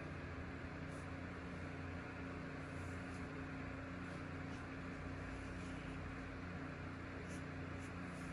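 Steady low mechanical hum with a constant tone throughout, and faint short scratches of a felt-tip marker drawing on paper.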